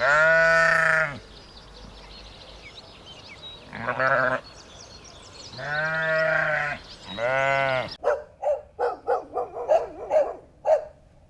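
Farm animal bleating: four long, wavering bleats, the first and last two loud and the second shorter. After a sudden cut, a run of about eight short, quick calls follows.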